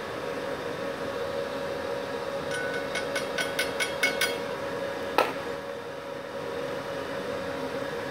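Multipro MMA 160G-KRK inverter welding machine idling, switched on with no arc struck, with a steady hum from its cooling fan. A run of about seven quick light clicks comes two and a half seconds in, then one sharper knock about five seconds in.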